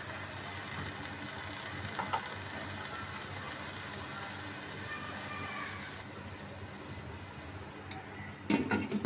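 A pot of pasta and chicken in water cooking on a gas stove with a steady low hiss, a small knock about two seconds in, then a glass lid set down on the metal pot near the end with a loud clatter.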